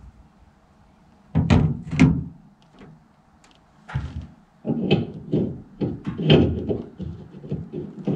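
Metal pipe fittings and a pipe wrench being handled. Two heavy thunks come about a second and a half in, then from about four and a half seconds an irregular run of knocks and clatter.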